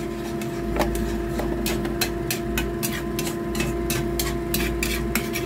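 Spatula scraping and tapping against a wok while stirring thick tomato sauce, irregular clicks a couple of times a second, over a steady hum.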